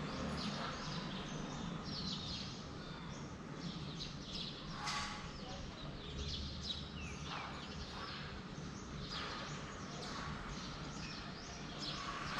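Many small birds chirping and calling at once, short quick notes overlapping all through, over a steady low hum.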